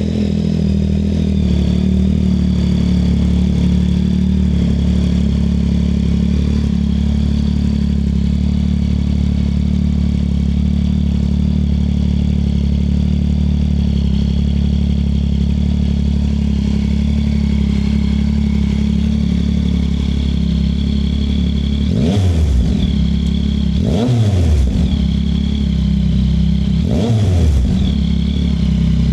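2024 Yamaha MT-09 SP's inline-three engine idling steadily through a MIVV X-M5 full-system exhaust with the dB killer removed, then revved three times near the end, each blip climbing and dropping quickly.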